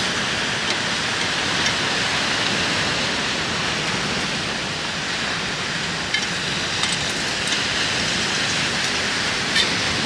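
Steady hiss of rain falling, with a few sharper ticks of drops now and then.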